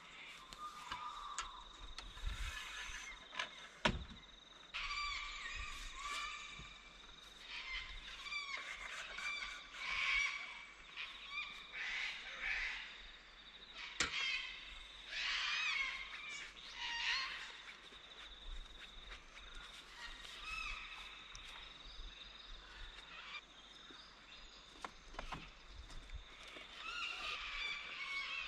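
Many birds chirping and calling over one another, with a faint steady high tone underneath and a sharp knock twice.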